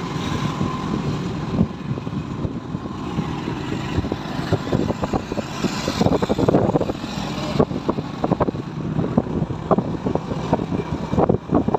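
Road and engine noise from a moving vehicle, heard from on board, a steady rumble with uneven thumps from about four seconds in.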